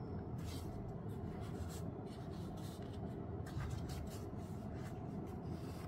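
Faint handling noise from a camera and its zoom lens being turned over in the hands: soft rubs and a few light ticks, over a steady low hum.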